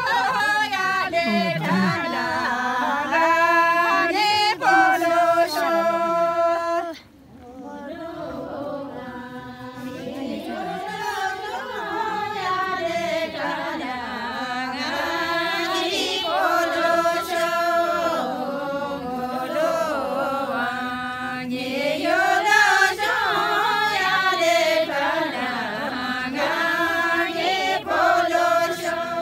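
A group of voices singing a traditional folk song together, unaccompanied. About seven seconds in the singing drops away briefly, then resumes.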